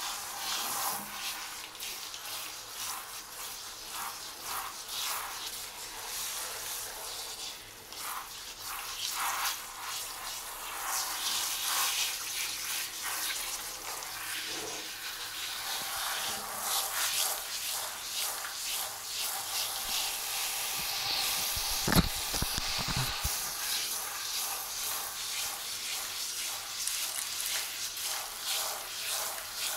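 Water spraying from a handheld shower head onto a cat's wet fur: a continuous hissing spray that swells and thins as the head moves. A single sharp knock about two-thirds of the way through.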